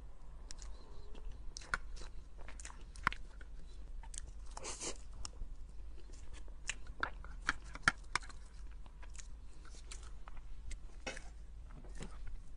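Close-miked eating sounds of a soft, smooth cream cake: wet mouth smacks and clicks, irregular and scattered, with little chewing and occasional taps of a metal spoon in a plastic box.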